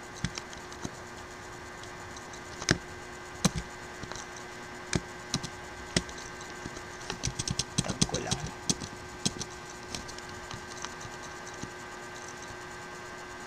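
Computer keyboard keys being pressed: scattered single clicks, with a quicker run of keystrokes about halfway through, over a faint steady hum.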